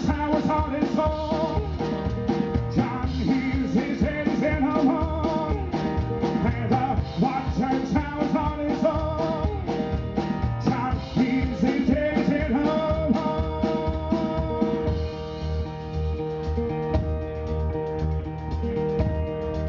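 Live country-blues band playing an instrumental break: resonator guitar with bending, sliding notes over a drum kit and washboard keeping a steady beat.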